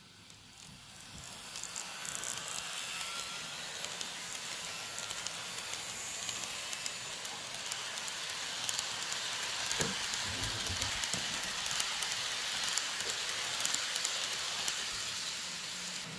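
N scale Atlas ALP-45DP model locomotive and multilevel coaches running past on the track: a steady rushing hiss of wheels on rails with light clicking, building up over the first couple of seconds.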